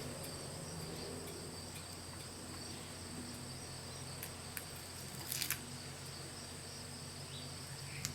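Quiet handling of a rubberized adhesive grip wrap being pressed onto a pistol's polymer frame, a few soft rustles and taps about five seconds in and near the end, over a steady high-pitched background tone and a low hum.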